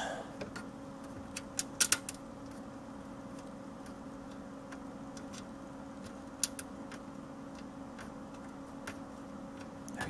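Small sharp clicks and taps of a blower fan being fitted by hand into a steel computer case: a quick run of three or four clicks a little under two seconds in and one more a little after six seconds, over a steady low hum.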